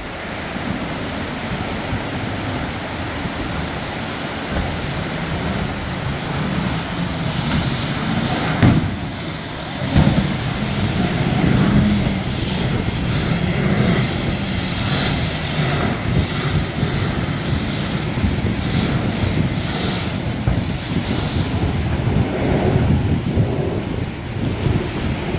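Racing jet boat running at speed: a loud, steady engine and rushing-water noise, with a thin high whine that wavers up and down in pitch and a couple of sudden loud surges partway through.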